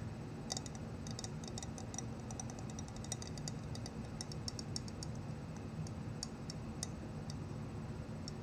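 Fingernails tapping on a glass vase: quick, uneven clicks, several a second, thinning out near the end.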